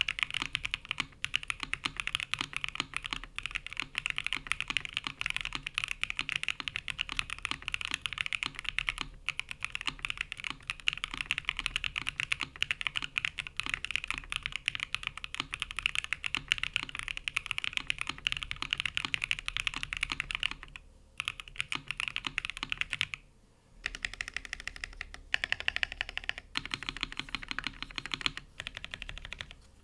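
Fast, continuous typing on a TGR 910 ME mechanical keyboard with lubed Createkeebs Lotus linear switches, a polycarbonate plate and CRP Jipink keycaps. The typing breaks off briefly twice past the two-thirds mark, then resumes.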